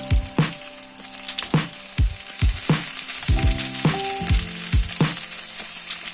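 Food frying and sizzling in a pan, with a series of sharp knocks coming roughly twice a second.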